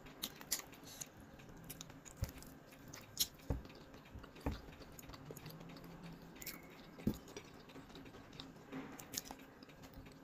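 A person chewing and biting a sauce-coated chicken wing, heard as irregular short smacks and clicks of eating.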